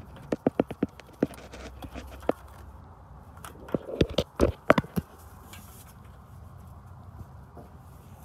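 Gloved hands working the plastic plug and wiring of a Ford F450's exhaust-gas-temperature sensor harness: a series of sharp clicks and knocks, thickest around four to five seconds in, then only a low steady background.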